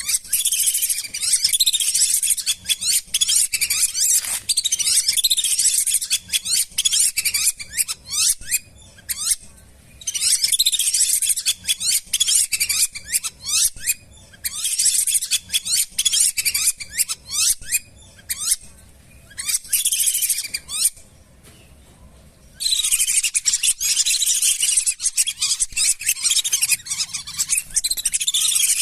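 Lesser whistling ducks giving shrill, rapid whistled calls in dense overlapping bouts of short falling notes, broken by brief pauses about a third and three-quarters of the way through.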